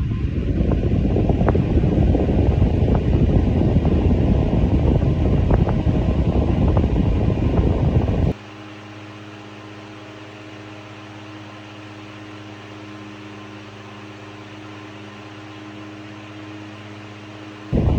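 12-inch 1905 Westinghouse 'Tank' table fan running on high, first as a loud steady rush of moving air with a few faint ticks. About eight seconds in it drops abruptly to a quieter, steady electric motor hum.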